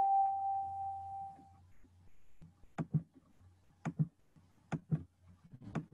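A chime's note rings on and fades away over the first second and a half. Then four pairs of soft clicks or taps follow, about a second apart.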